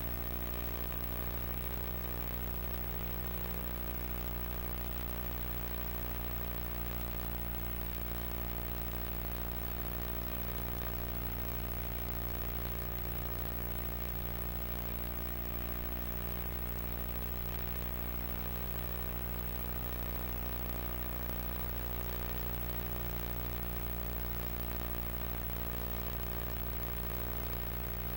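Steady electrical hum and buzz, a low drone with many evenly spaced overtones, under a constant hiss. It is the noise floor of an old video recording that carries no other sound.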